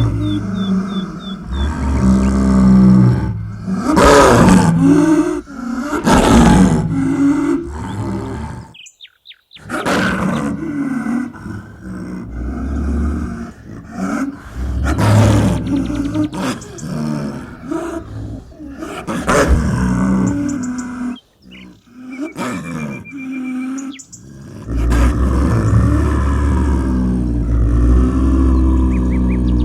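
Snow leopard calling: a series of loud, drawn-out calls, one after another, broken by two brief silences.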